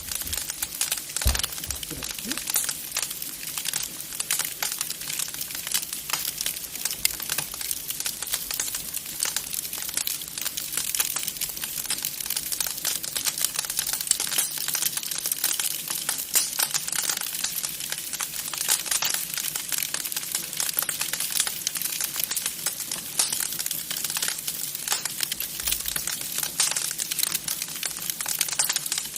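Wood fire crackling in a fireplace: a steady stream of irregular small pops and snaps.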